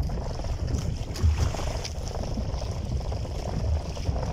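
Wind buffeting the microphone in a low, uneven rumble, aboard a small fishing boat at sea.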